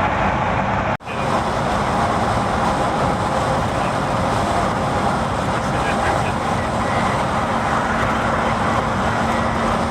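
Steady engine and road noise of a car being driven, with a brief dropout about a second in.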